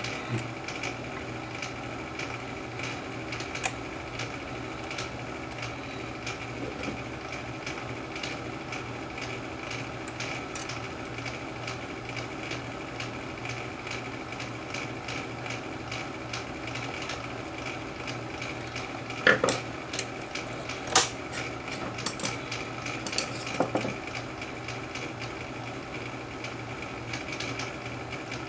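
Small metallic clicks and taps as parts of a Sony TC-200 reel-to-reel tape transport are handled and refitted by hand. The loudest cluster comes about two-thirds of the way through, over a steady hum.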